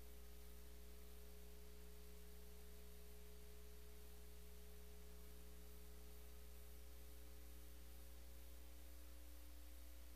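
Near silence from a muted meeting audio feed, with only a steady low electrical hum and faint hiss.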